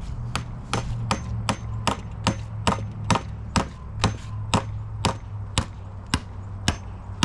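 A hammer striking a steel sleeve anchor about seventeen times in a steady rhythm, roughly two to three blows a second and slowing slightly, driving it into its hole in the patio paver. A steady low hum runs underneath.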